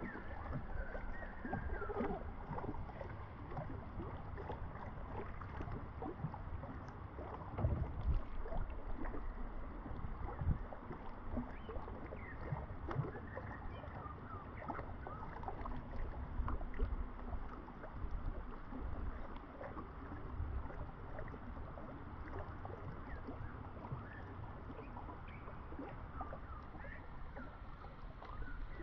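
River water lapping and splashing against the side of a canoe, with many small irregular plips and gurgles.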